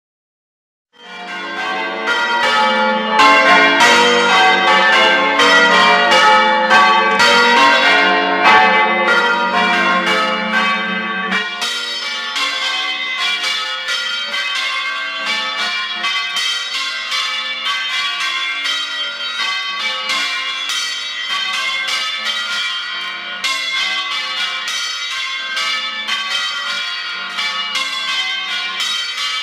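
Ring of five church bells (tenor about 13 cwt in F) being rung full-circle in changes, with the strokes following one another in an even, overlapping pattern. The ringing starts about a second in. About eleven seconds in it turns thinner and quieter, with the deepest notes dropping away.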